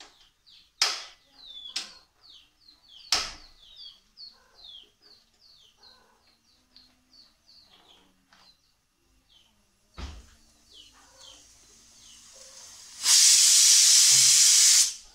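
Aluminium pressure cooker whistling: steam vents in a loud, steady hiss for about two seconds near the end. This is its second whistle, the sign that the chana dal and vegetables inside are cooked. Before it come a few sharp clicks, with birds chirping repeatedly in the background.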